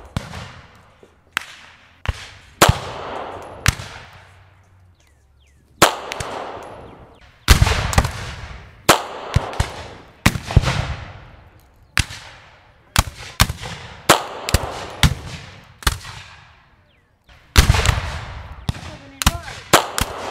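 Repeated gunshots at uneven intervals, some single and some in quick runs, each trailing off in a long echo. There are short lulls about four and sixteen seconds in.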